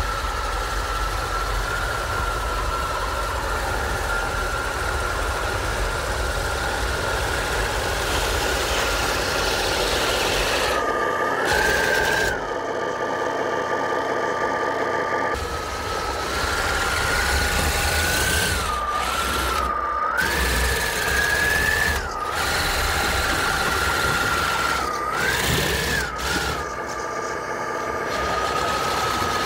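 Whine of the brushless electric motors in a custom 6x6 tracked RC truck pushing snow with a plow, holding a steady pitch and rising briefly several times as the throttle is worked, over a steady hiss.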